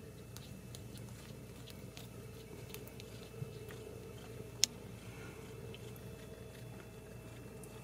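Newborn kittens suckling at their mother: soft, scattered wet clicking and smacking mouth sounds over a steady low hum, with one sharp click about halfway through.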